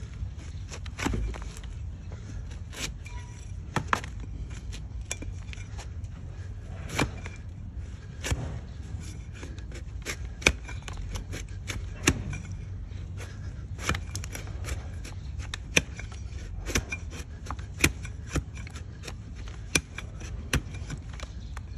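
A large flat hoof-trimming blade pared through a donkey's hoof horn on a wooden block: a string of sharp cutting and scraping strokes, one every second or two, over a low steady rumble.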